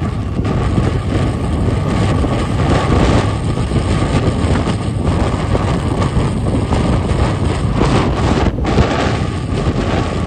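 Wind rushing over the microphone on a moving motorcycle, with steady engine and road noise beneath it.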